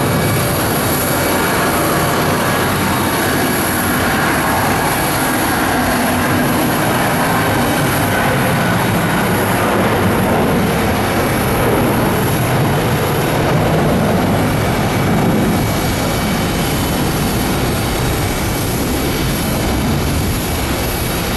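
Boeing 777-200ER's twin jet engines at take-off power, a loud, steady rumble easing slightly near the end.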